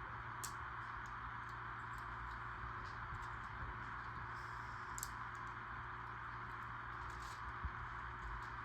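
A few faint, scattered clicks of small plastic LEGO Technic pieces being handled and pressed into place, over a steady background hiss.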